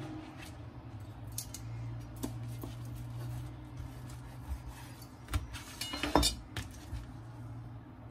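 Chef's knife cutting through crisp pan-fried lavash flatbreads and knocking on a plastic cutting board: scattered crackles and clicks, the loudest cluster about six seconds in, over a steady low hum.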